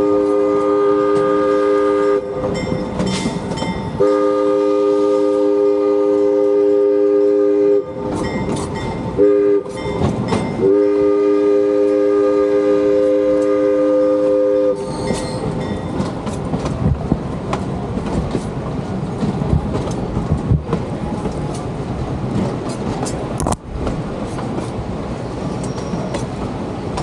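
Locomotive whistle sounding a steady three-note chord in the grade-crossing signal: two long blasts, one short and a final long, Morse code for the letter U. The last blast ends about halfway through, and the train keeps rolling with wheel clatter.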